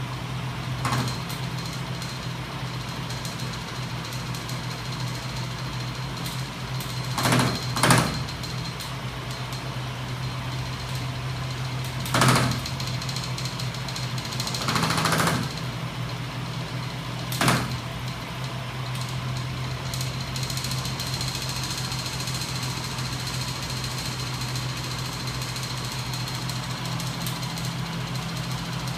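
Homemade reciprocating magnet engine rig, driven by a battery-powered electric motor, running with a steady hum and a faint high whine. Several loud clunks from the mechanism break in near the middle.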